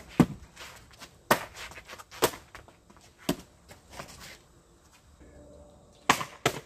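Kicks smacking into handheld kicking paddles: about six sharp slaps at uneven intervals of roughly a second, with a longer gap near the middle and two quick slaps close together near the end.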